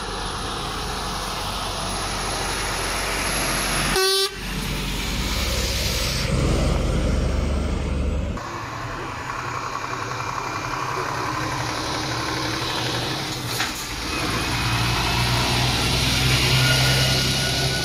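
Heavy trucks' diesel engines running as the lorries pull out and drive past, with a short horn toot.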